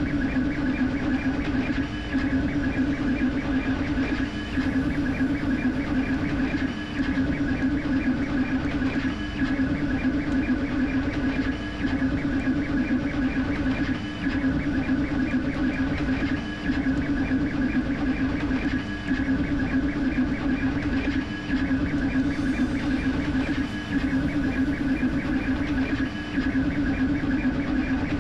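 Creality K1C 3D printer printing at high speed: stepper motors and cooling fans running steadily as the print head races back and forth, with a brief dip in the sound about every two and a half seconds.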